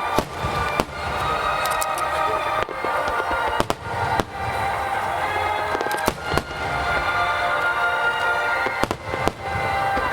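Aerial firework shells bursting with repeated sharp booms over steady orchestral-style music from loudspeakers.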